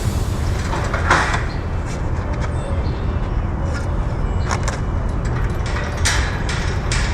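A stump grinder's engine runs steadily while it grinds an oak stump, with a few short, sharp bursts of noise as the cutting wheel bites.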